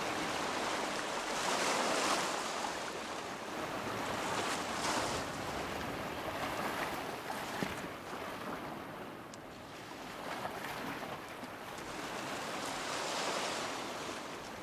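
Small waves washing against a rocky lakeshore: a steady rushing that swells and eases every few seconds.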